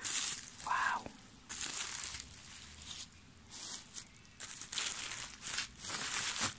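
Bubble wrap rustling and crinkling as hands handle and pull apart a bubble-wrapped package, in a string of short, irregular bursts.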